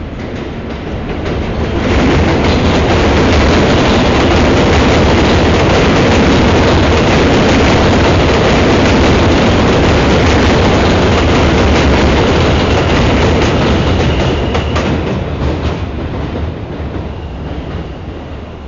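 Elevated metro train running past on a steel viaduct: wheel-and-track noise swells over the first two seconds, stays loud with clattering wheels, then fades over the last few seconds.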